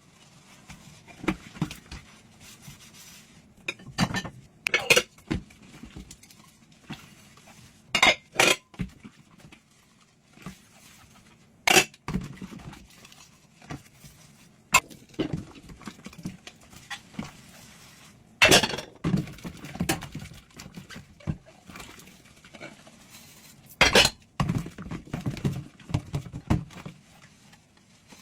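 Dishes and cutlery being washed by hand, knocking and clinking against each other at irregular intervals, with soft handling and scrubbing sounds in between.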